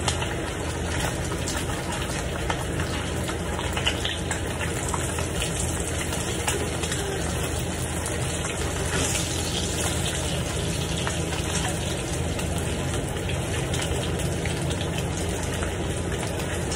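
Bacon frying in a pan: a steady sizzle with small crackles throughout.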